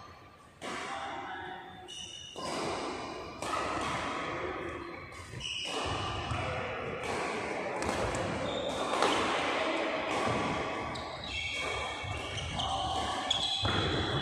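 Badminton rally in a large echoing sports hall: rackets repeatedly striking the shuttlecock, with shoes squeaking on the court mat and players' voices calling out.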